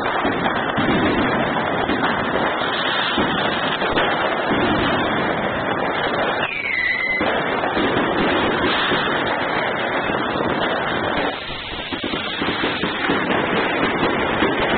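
A continuous fireworks barrage: many overlapping bangs from exploding fireworks, with a brief falling whistle about halfway through.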